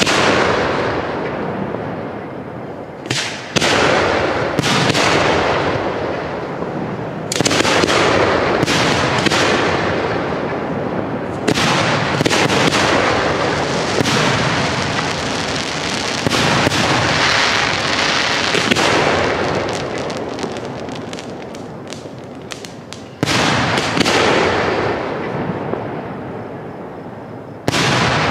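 Professional aerial fireworks shells bursting overhead: a string of loud booms, each trailing off in a long echoing rumble, with a fast run of many sharp reports around the middle.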